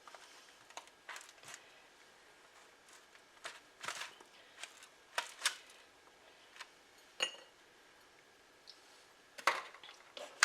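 Knife cutting into a frozen no-bake pie: about a dozen scattered clicks and scrapes as the blade works through the hard filling and graham cracker crust against the dish, the sharpest near the end.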